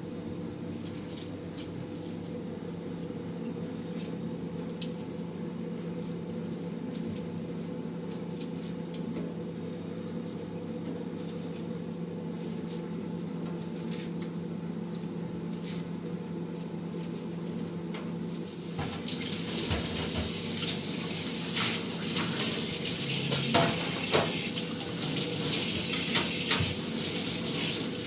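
Dishes and utensils clinking lightly over a steady hum, then water starts running about two-thirds of the way through and keeps flowing, with a few knocks of dishes in it.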